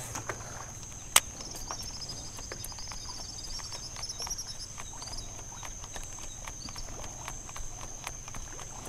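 Irregular light clicks and ticks from the baitcasting reel and rod as a propeller topwater lure is jerked and reeled in, with one sharper click about a second in. A steady high-pitched whine runs underneath, and a high warbling call sounds for a few seconds in the middle.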